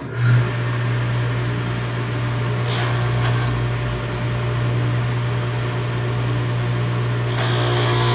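Table saw fitted with a dado blade switched on, spinning up and running steadily with a low hum. A louder, higher whir comes about three seconds in and again near the end as the dado blade cuts a groove in plywood.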